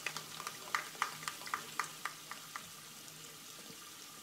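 Scattered clapping from a few people: a dozen or so irregular claps that die out after about two and a half seconds, over a faint steady low hum.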